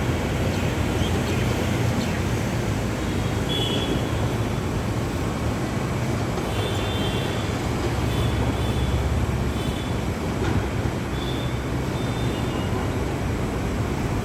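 Steady road traffic noise with a heavy low rumble, broken now and then by short high-pitched tones.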